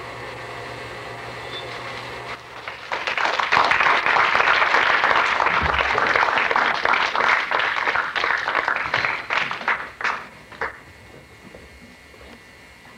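Audience applauding. It follows a few seconds of low steady hum, builds quickly, then thins out into a few last separate claps before stopping.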